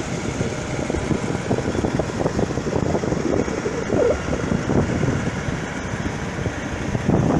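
Surf breaking and washing up the beach, with wind buffeting the microphone in a steady, fluttering rumble.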